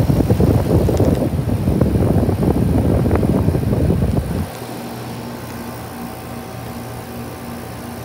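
Guardian split-system air-conditioner condenser running, its top fan blowing hot discharge air that buffets the microphone with a rough rush. About four and a half seconds in, the rush drops away and leaves a steady low hum from the running unit.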